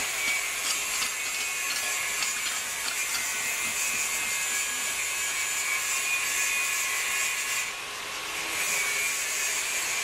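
Tubular centrifuge running at speed: a steady high hiss with a faint high whine, which dips briefly about eight seconds in and then comes back.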